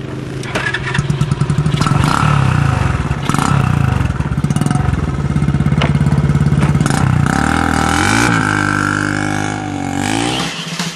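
Small engine fitted to a children's ride-on Mustang toy car, running with a rapid firing rhythm. Its pitch rises and falls as it revs, twice in the second half.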